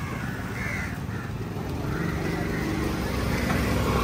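Crows cawing several times over a low engine hum, which grows louder and steadier about halfway through.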